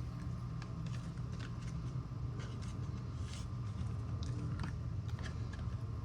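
Trading cards being handled and flipped through, with faint scattered clicks and rustles over a steady low hum.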